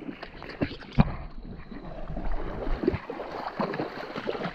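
Muddy creek water sloshing and splashing irregularly as people move about in it, with one sharp, louder hit about a second in.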